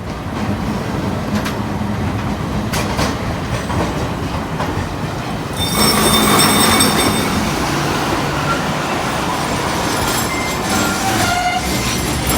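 A streetcar running on its rails with a steady rumble and clatter. About six seconds in a loud high-pitched screech rises over it, like wheels squealing on a curve, and a few short higher tones follow near the end.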